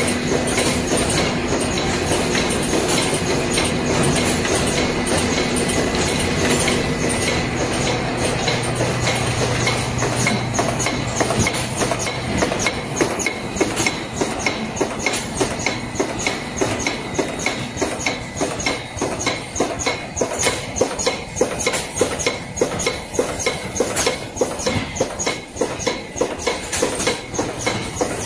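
High-speed tube cartoning machine running: a steady mechanical clatter with a hum, which turns into a rapid, even clacking about halfway through.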